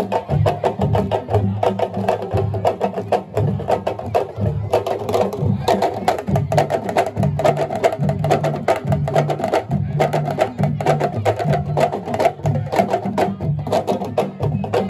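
Ensemble of West African drums playing a fast, dense dance rhythm: a rapid stream of sharp strokes over deep, shifting drum tones.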